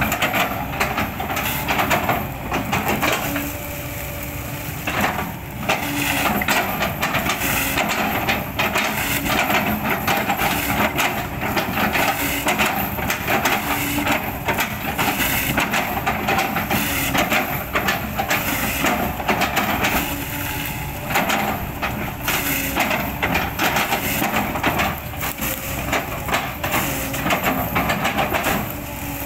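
Hydraulic excavator chopping an old oil palm trunk into chips with its bucket: continuous irregular crunching and cracking of fibrous wood over the running engine.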